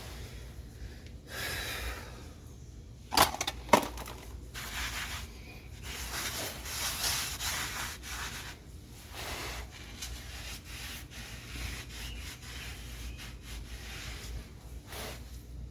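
Intermittent rubbing and scraping of hands working on car parts. Two sharp knocks about three seconds in are the loudest sounds.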